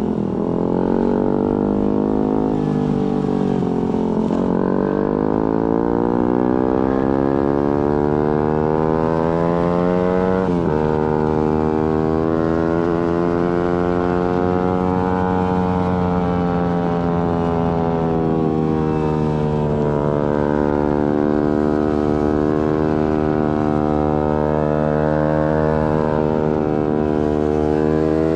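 Suzuki GSX-R150's single-cylinder engine through an aftermarket Prospeed exhaust, heard while riding. Its note falls over the first few seconds, climbs steadily, and breaks sharply about ten seconds in as it shifts gear. After that it holds at a cruising pitch with gentle rises and dips.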